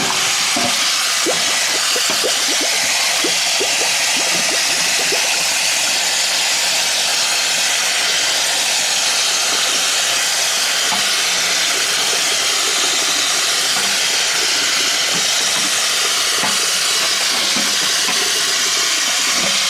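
Kitchen tap running in a steady stream into a stainless steel colander of pork chops in the sink, with splashing as hands turn and rinse the meat under the water.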